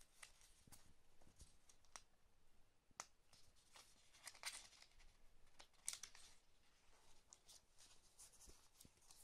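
Faint rustling of paper and packaging, with scattered small clicks and taps from handling.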